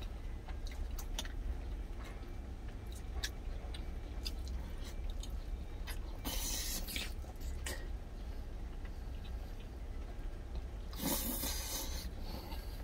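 Close-up chewing and lip-smacking of a person eating saucy spicy pork ribs: a run of small wet clicks, with two longer, louder slurps about six and eleven seconds in. A steady low hum runs underneath.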